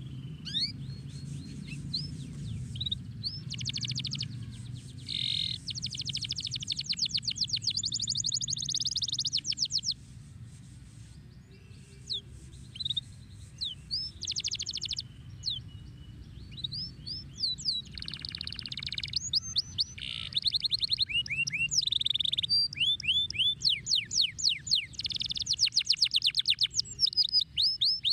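Domestic canary singing: long rolling trills of rapid repeated notes alternating with quick downward-sweeping whistles, with a short lull about ten seconds in.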